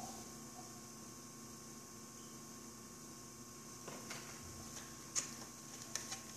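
Electric pottery wheel running with a low steady hum while a clay cup is thrown on it, with a few faint clicks and taps in the second half.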